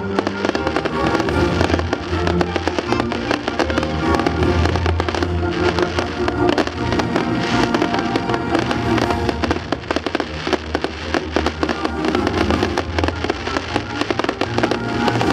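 Fireworks display with dense, rapid crackling and popping, over a musical soundtrack playing throughout.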